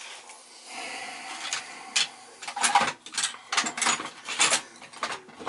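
Metal tool scraping and clinking inside a tub/shower faucet's cold-water valve as a badly worn, broken square valve seat is worked at to get it out: a string of short scrapes and clicks, coming faster after about two seconds.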